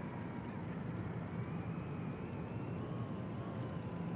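Steady low rumble of outdoor background noise with a faint high whine that wavers slowly in pitch.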